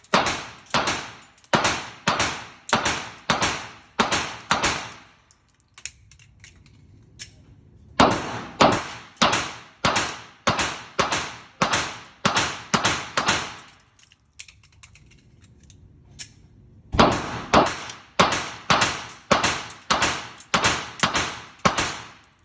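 Glock 43X 9mm pistol fired in three strings of about ten shots each, roughly two shots a second, with pauses of a few seconds between strings. Each shot has a short echoing tail.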